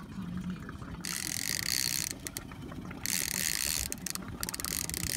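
Baitcasting reel ratcheting in two long stretches about a second apart, with bursts of quick clicks between and after them, as line works against two striped bass hooked on one rod.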